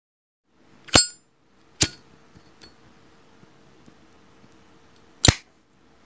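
Zippo lighter making three sharp metallic clicks: the first, about a second in, rings with a bright clink, the second follows just under a second later, and the loudest clack comes near the end.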